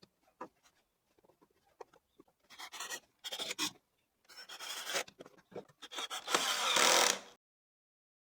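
Wood being scraped or rubbed by hand in three strokes, each about a second long, after a few light taps and clicks. The last stroke is the loudest and cuts off suddenly.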